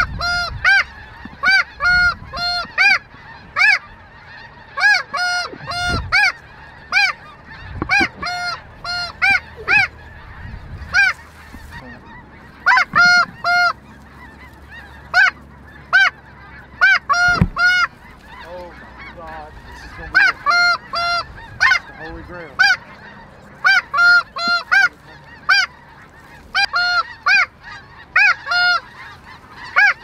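Snow geese calling: a steady stream of short, high-pitched honks, several a second, in runs with brief gaps.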